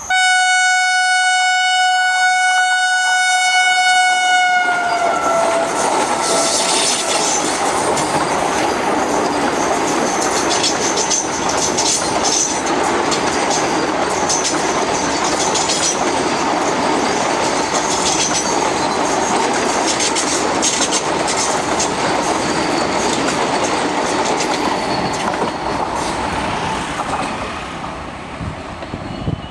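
Vande Bharat Express trainset sounding one long single-tone horn as an acknowledgement honk from the loco pilot. The horn lasts about five seconds, and its pitch drops slightly as the train comes by. The train then runs past at speed with steady rail clatter for about twenty seconds, fading near the end.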